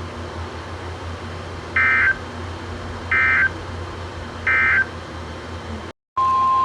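Emergency Alert System (SAME) end-of-message data bursts: three short, identical bursts of warbling digital tones, about a second and a half apart, over a steady low radio hum. After a brief dropout near the end, a steady alert tone starts.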